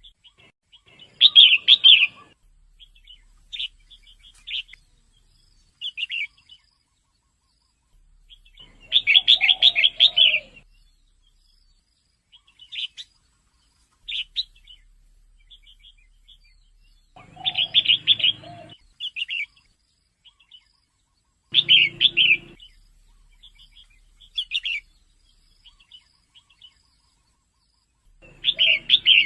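Female red-whiskered bulbul calling: bursts of rapid, bright chattering chirps every several seconds, with short single chirps in between.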